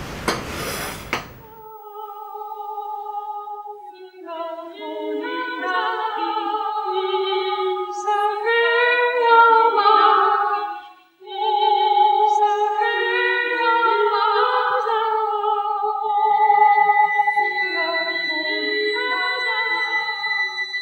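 Soundtrack music: a high solo voice singing a slow melody in long held notes with little accompaniment, breaking off briefly about halfway. A steady high tone joins it for the last few seconds, and there is a short burst of clatter at the very start.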